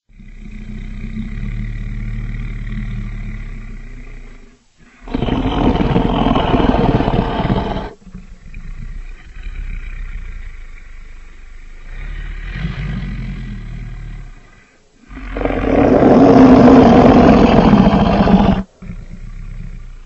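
Custom-made Tyrannosaurus rex sound effect: a low growl, then a loud roar about five seconds in lasting some three seconds and cutting off suddenly. More low growling follows, then a second loud roar near the end that also stops abruptly.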